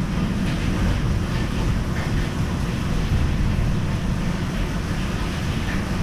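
Steady rushing of wind and water in a storm, with wind buffeting the microphone.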